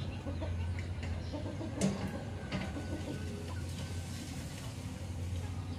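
Chickens clucking as they peck rice off the ground, with scattered short pecking clicks and a sharper call or peck about two seconds in. A steady low hum runs underneath.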